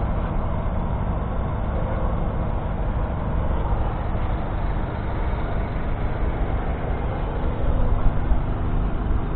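John Deere 6215R tractor's 6.8-litre six-cylinder diesel running steadily under working load, getting briefly louder about eight seconds in.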